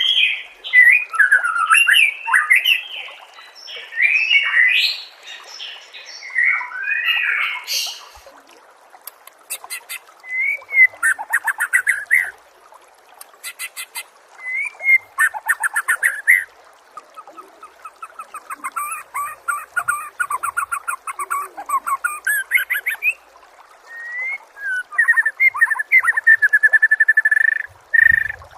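White-rumped shama (murai batu) singing a loud, varied song. The first several seconds are whistled phrases that slide up and down in pitch; after that come bouts of fast repeated notes and chattering rattles with short pauses between them.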